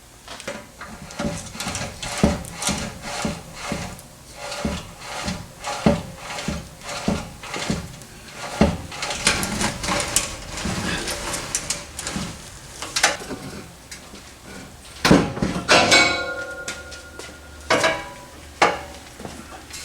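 Hand tools working loose the bolts of an exhaust cutout under a car: a long run of short metallic clicks and clinks, then a louder clank with a brief metallic ring about 16 seconds in.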